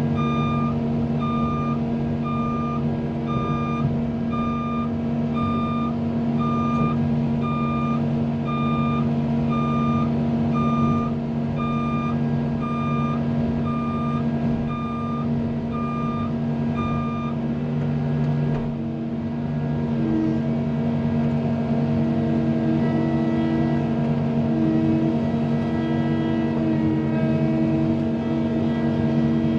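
CAT 310 mini excavator's diesel engine running steadily under load while it pushes against a tree, with its travel alarm beeping about once a second until it stops about two-thirds of the way through. A wavering higher whine then joins the engine.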